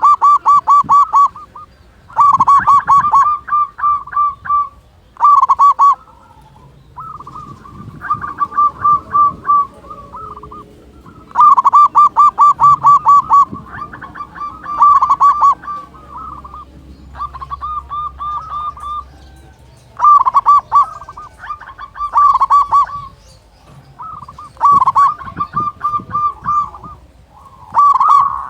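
Zebra dove (perkutut) singing: bout after bout of fast, stuttering cooing notes, each bout one to two seconds long, with short pauses between them.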